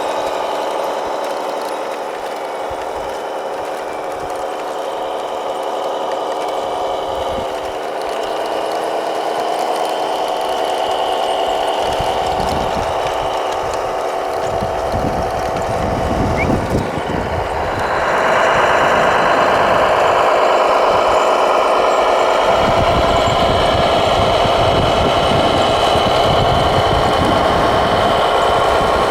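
Whine of radio-controlled construction machines' electric motors, several steady pitches drifting slowly up and down as they work under load. A rough, rumbling scrape joins about twelve seconds in, and the whole sound grows louder at about eighteen seconds.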